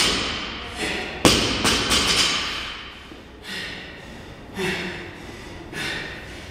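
Heavily loaded barbell with 45-lb plates set down onto rubber gym flooring during deadlifts: a thud right at the start and a louder one about a second later, then softer, quieter sounds.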